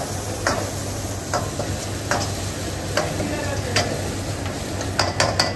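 Chopped onion sizzling in a wok over a high flame while a metal ladle stirs it, scraping and knocking against the pan about once a second, with a quick run of three knocks near the end. A steady low hum runs underneath.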